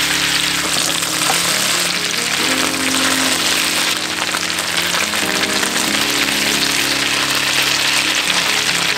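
Ground-beef meatballs sizzling steadily as they fry in hot fat in a nonstick frying pan, with background music playing.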